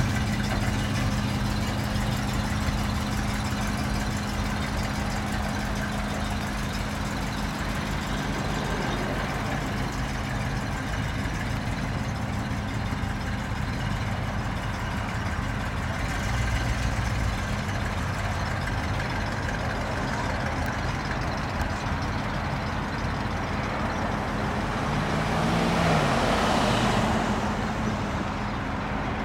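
The 1955 Chevrolet Biscayne concept car's engine runs steadily as the car is driven slowly. It grows louder for a couple of seconds near the end as the car passes close by, its pitch rising and then falling.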